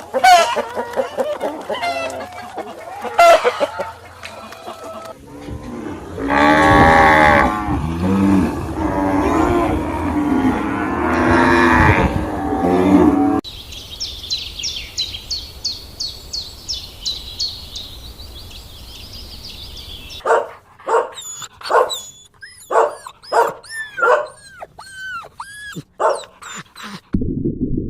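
A string of animal calls cut one after another: cattle mooing loudly in long low calls for several seconds near the middle, then rapid high-pitched chirping calls in the later part.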